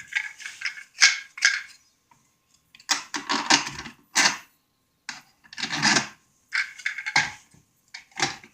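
Irregular clattering knocks and rattles of hard plastic, in bursts up to about a second long, as a new chainsaw is handled.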